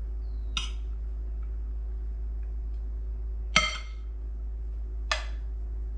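Serving spoon clinking three times against a ceramic dish while rice is scooped out, each a short ringing clink, the middle one loudest. A steady low hum runs underneath.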